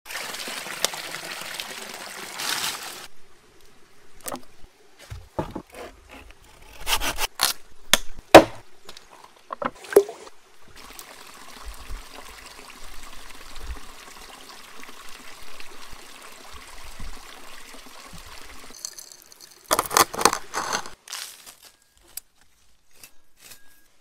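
Running stream water splashing over a whole raw chicken as it is rinsed, cutting off about three seconds in. Then a string of sharp knocks and handling sounds from food preparation, a stretch of steady running water, and a short loud burst of noise near the end.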